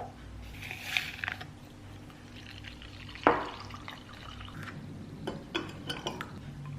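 A drink being made in a glass. There are sharp clinks of glass, a short splash of liquid about a second in, and a run of lighter clinks near the end, like a spoon stirring.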